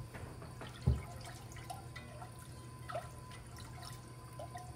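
Whisk stirring milk into a flour roux for a white sauce in an enamelled cast-iron pot: soft liquid sloshing with light scattered taps of the whisk. A single dull thump about a second in.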